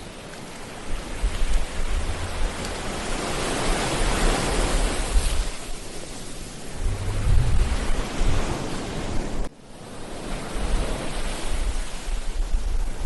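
Ocean surf: a wave swells, breaks and washes up the beach, with wind gusting on the microphone in low rumbles. The sound drops out abruptly for a moment about two-thirds of the way through, then the surf returns.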